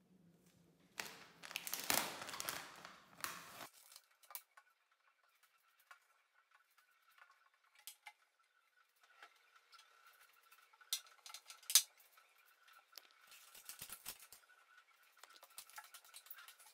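Small household items being handled and put down while a bathroom cabinet is cleaned and sorted: a rustle about a second in, scattered clicks and light clinks with one sharp click past the middle, then more rustling.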